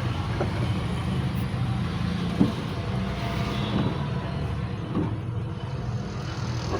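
A 1 hp electric motor running with a steady low hum, with a few faint knocks, the sharpest about two and a half seconds in.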